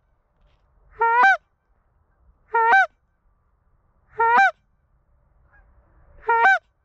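Canada goose call blown by hand, hailing passing geese: four loud honks, each breaking from a low note up to a higher one, spaced about a second and a half to two seconds apart.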